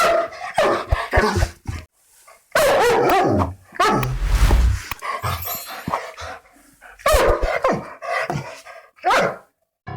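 A dog barking aggressively in loud clusters of rapid barks with brief pauses between them, ending with a single bark shortly before the end.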